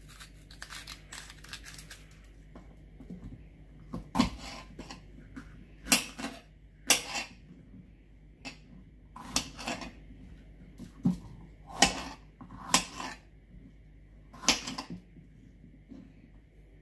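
Kitchen knife cutting bell peppers on a plastic cutting board: irregular sharp cuts and knocks, some single and some in quick clusters, with short pauses between.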